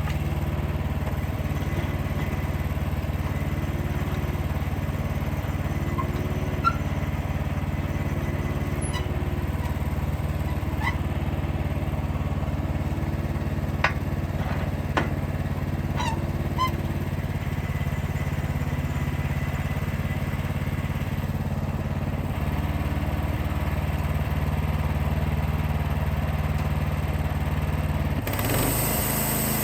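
Wood-Mizer LX55 portable band sawmill's 14 hp engine running steadily, with a few short squeaks and clicks from the mill in the middle. Near the end the engine's note shifts suddenly and a high hiss comes in.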